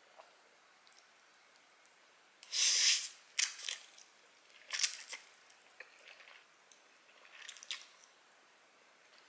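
Instant noodles being slurped up off chopsticks. There is one long loud slurp about two and a half seconds in, then shorter slurps and wet chewing.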